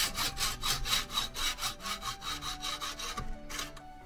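Hacksaw cutting through a metal tube clamped in a bench vice, with quick, even strokes at about five a second. The strokes stop about three and a half seconds in as the piece is cut off.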